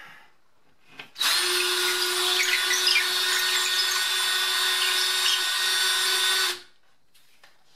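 19.2-volt cordless drill running steadily for about five seconds as a small bit widens a pilot hole in drywall, starting about a second in and stopping abruptly.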